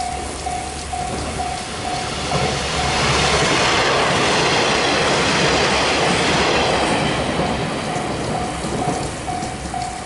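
A JNR-era electric train passes close by, its wheels clattering over the rails. The noise swells for a couple of seconds, stays at its loudest for about four, then fades. A level-crossing warning bell rings about twice a second throughout and is drowned out while the train is loudest.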